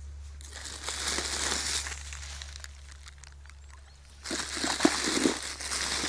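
Crinkly shiny plastic wrapping around a geocache being grabbed and pulled out from between rocks, crackling in two spells: briefly about a second in, then louder from about four seconds on.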